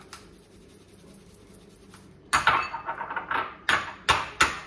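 Garlic clove scraped hard across a small hand grater over a bowl: one longer scrape a little over two seconds in, then three short, quick scraping strokes near the end.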